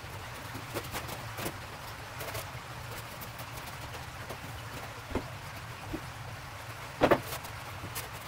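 Polystyrene foam panels being handled and pushed into a frame: scattered light knocks and scrapes, the loudest a sharp knock about seven seconds in, over a steady low hum.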